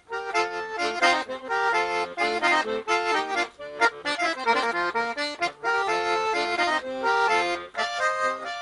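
Accordion playing an instrumental passage between sung verses: a melody of short, quick notes over chords.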